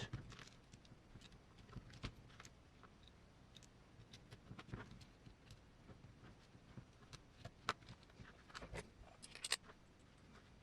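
Near silence with faint, scattered clicks and light taps of small screws, parts and hand tools being handled on a workbench.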